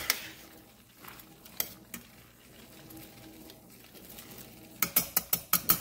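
Metal tongs clinking against a stainless steel pot while stirring and lifting spaghetti in its cooking water: a few scattered clinks, then a quick run of about eight clacks near the end.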